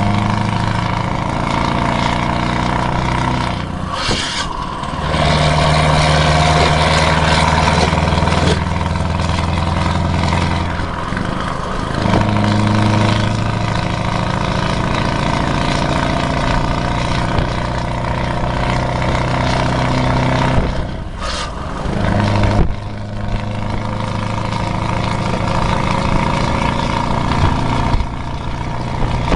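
Scania R580's V8 diesel engine running under load as the truck drives at road speed, heard from inside the cab over road noise. The engine note breaks off briefly about four seconds in and again about twenty-one seconds in, and its pitch steps between settings, as the gearbox shifts.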